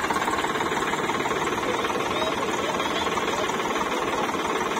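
Sonalika DI 47 tractor's diesel engine running steadily, with a fast, even beat.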